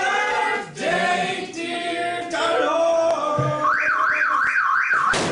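A group of people singing together around a birthday cake. About three and a half seconds in, an electronic alarm-like warble takes over, sweeping up and down about three times a second, and a sharp knock comes right at the end.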